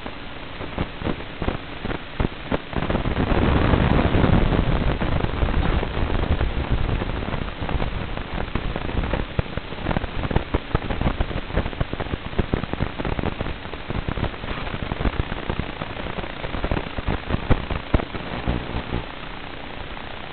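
Hiss and crackling static from an analog FPV video receiver's audio channel. It swells about three seconds in, crackles unevenly as the video signal breaks up, then settles to a steadier hiss near the end.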